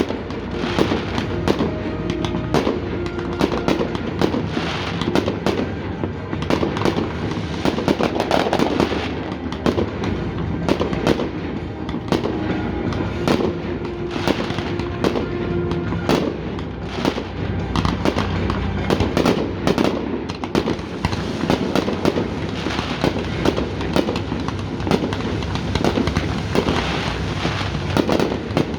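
Aerial fireworks going off in a rapid, continuous barrage of bangs and crackles, with music playing underneath.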